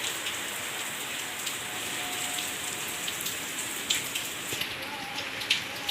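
Steady rainfall, with individual drops striking close by every so often, two of them louder about four and five and a half seconds in.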